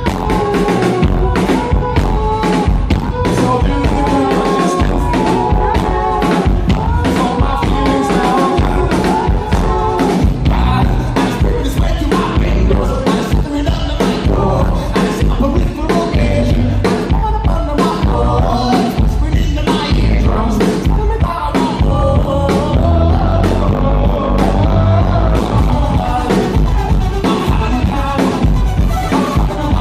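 Indie rock band playing live at full volume: steady drums, heavy bass and a voice singing over the band.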